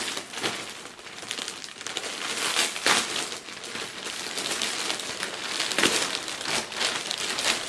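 Plastic packaging crinkling and rustling as hands open a black plastic bag and handle the plastic-wrapped items inside, with louder crackles about three and six seconds in.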